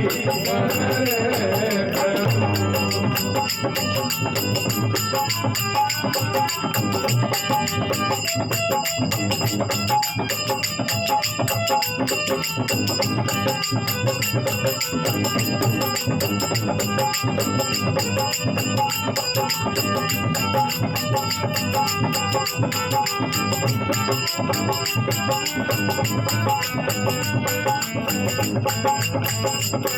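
Instrumental passage of a Rajasthani bhajan: sustained melody over steady, fast jingling percussion.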